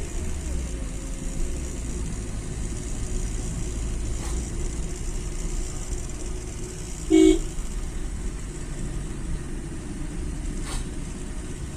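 Steady low road and engine rumble inside a moving hired car climbing a ghat road, with one short honk of a vehicle horn about seven seconds in.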